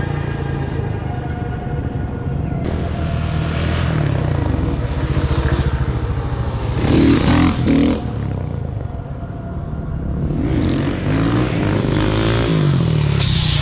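Supermoto motorcycle engine revving up and easing off again and again as the bike rides about, loudest about seven seconds in.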